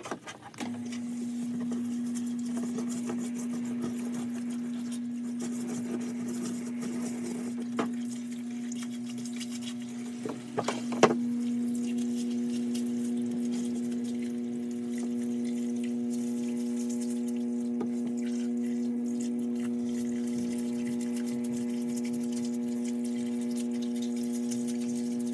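A steady electronic tone held at one pitch. About eleven seconds in, several higher tones join it to form a sustained chord, with a few faint clicks.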